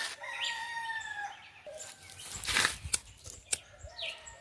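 A rooster crowing once in the background, one long call falling slightly in pitch, with small birds calling. About two and a half seconds in there is a short scraping rustle, followed by a couple of sharp clicks.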